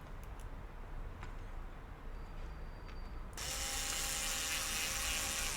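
A few light clicks, then a small electric motor whirring steadily for about two seconds, starting about three and a half seconds in.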